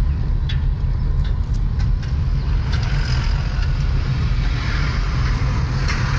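Car moving along a road, heard from inside: steady low road and engine rumble, a few sharp clicks in the first couple of seconds, and a tyre hiss that grows louder over the second half.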